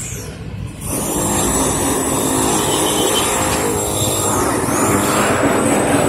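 Motor vehicle engine running steadily with road noise, dipping briefly just after the start.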